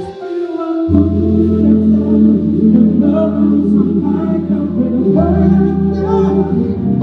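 A live pop band playing, with three male vocalists singing together into microphones over a backing band. A sustained bass line comes in about a second in.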